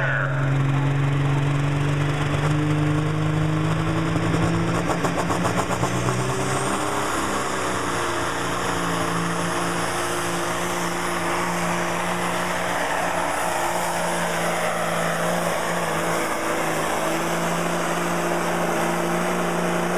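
A pulling semi truck's diesel engine runs hard under load as it drags the weight-transfer sled. The engine note steps up about six seconds in, and a high whine rises at the same time and then holds.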